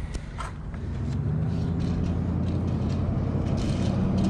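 A motor vehicle's engine running, a low steady hum that builds over the first second and then holds, its pitch creeping slightly upward.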